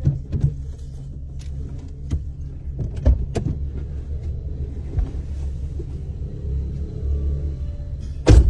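Car engine idling, heard from inside the parked car's cabin as a steady low hum, with a few short knocks and one loud thump near the end.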